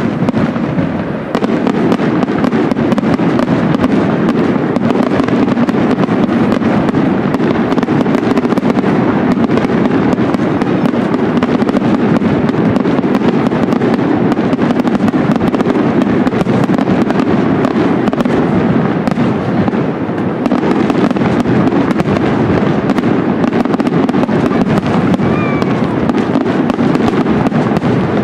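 Aerial fireworks display: a dense, continuous barrage of shell bursts and crackling. It eases briefly about two thirds of the way through.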